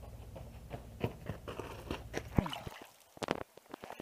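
Footsteps crunching on gravel, coming closer and getting louder, then a few close knocks and rubs as the crashed FPV drone with its camera is picked up by hand.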